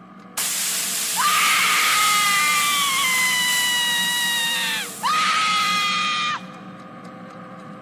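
A woman screaming: a long high scream of nearly four seconds whose pitch sags a little, then a second, shorter scream of about a second and a half, both over a hissy rush of noise.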